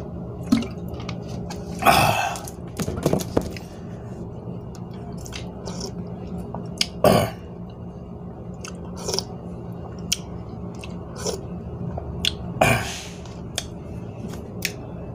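A man chewing and eating instant cup noodles, with wet mouth clicks and smacks and three louder mouth noises about two, seven and thirteen seconds in, over a steady low hum.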